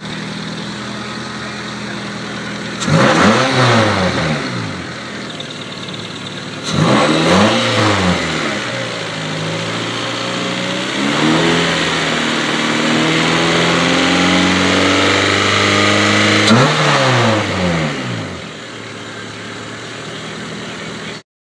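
1992 Honda Prelude's 2.2-litre four-cylinder engine idling and being revved: three quick blips of the throttle that rise and fall back to idle, with a slower, longer rise in revs held for a few seconds between the second and third. It settles back to a steady idle near the end.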